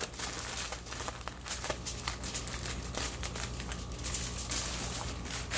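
Aluminum foil crinkling and crackling in irregular bursts as hands fold and crimp the end of a foil-wrapped rack of pork spare ribs. A steady low hum runs underneath.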